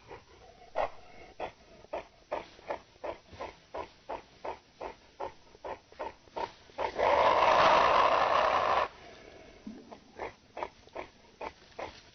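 Forest animal chattering sound effect played slowed down: a string of short, evenly spaced calls, about three a second. About seven seconds in the calls break off for a loud, steady noisy sound lasting about two seconds, then the calls start again.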